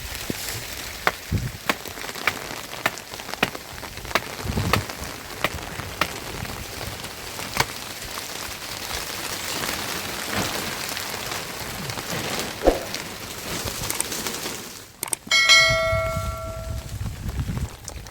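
Steady rain with many sharp drips and taps. Near the end comes a single metallic, bell-like ring that fades out after about a second and a half.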